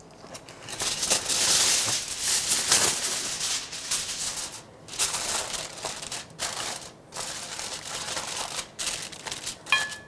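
Aluminium foil crinkling as it is pulled over and pressed around a baking dish, in irregular bouts with short pauses, loudest in the first few seconds.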